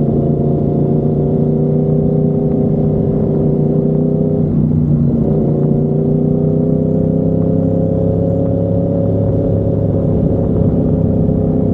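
Yamaha MT-10's crossplane inline-four running through an SC Project 70mm carbon-titanium exhaust at a steady cruise. The pitch eases down, breaks briefly about halfway through, then climbs slowly again.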